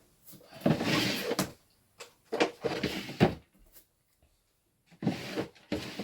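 Hands handling chips at a chip tester on a workbench: three short bouts of clicking, scraping and clatter, with quiet gaps between them.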